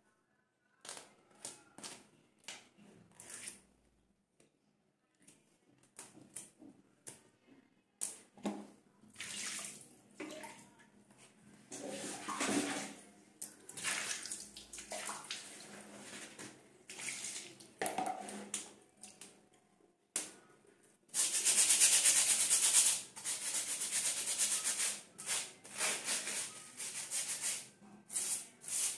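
Water poured from a plastic mug, splashing over a plastic comb and hair brush on a tiled floor, among light clicks of the combs being handled. From about two-thirds of the way in comes a loud, dense hiss of scrubbing and splashing in repeated strokes.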